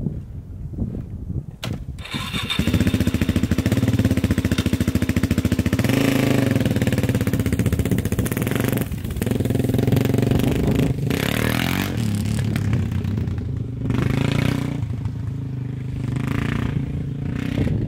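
Dirt bike engine starting: a knock, then the engine catches about two and a half seconds in and runs steadily. It then pulls away, the revs rising and dropping several times through gear changes as the bike rides off.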